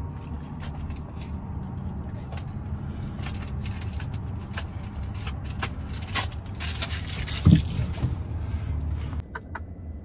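Steady low rumble of a vehicle engine with scattered light clicks, and one loud thump about seven and a half seconds in; the rumble drops away shortly before the end.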